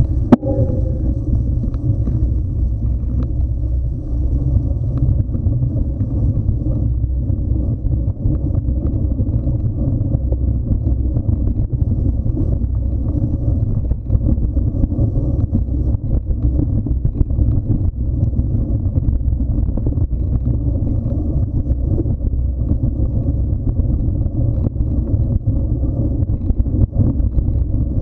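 Steady low rumble of wind buffeting a moving action camera's microphone, mixed with the ride over a leaf-covered trail, with many small knocks and rattles throughout.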